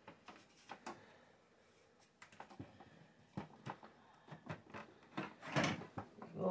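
Scattered light clicks and knocks, with a short louder rustle near the end, as a motherboard with its AIO cooler still attached is worked loose and lifted out of a PC case.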